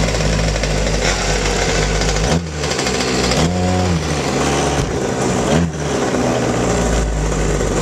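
Small two-stroke engines of Go-ped gas scooters running and being blipped, their pitch rising and falling several times.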